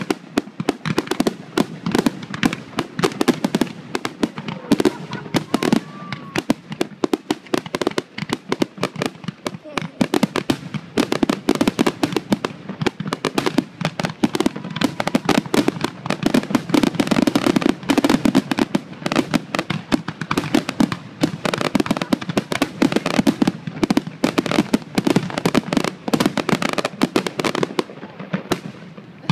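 Fireworks barrage at close range: dense, rapid bangs and crackling bursts of aerial shells, thinning out near the end.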